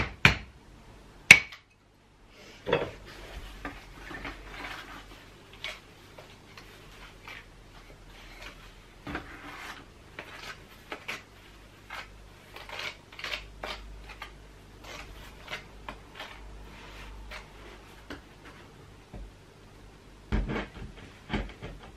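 Tile adhesive being scraped out of a plastic bucket and spread onto the back of a clay brick slip with a spreader, in irregular scrapes and taps. Two sharp clacks of brick slips knocking together come near the start, and a cluster of louder knocks about 20 seconds in as the slip is pressed onto the wall.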